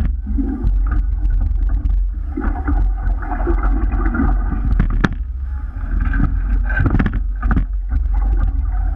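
Rowing eight under way: water rushing along the hull and sweep oars working in their oarlocks, with several sharp knocks, the loudest about five seconds in. A steady heavy rumble of wind buffets the boat-mounted camera's microphone.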